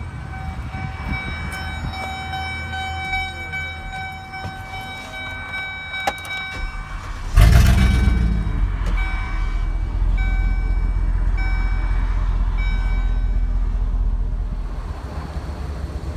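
A truck's repeating dashboard warning chime sounding in the cab. About seven seconds in, the 2007 Chevrolet C4500's 8.1-litre gas V8 starts with a sudden loud burst and settles into a steady low idle while the chime keeps sounding.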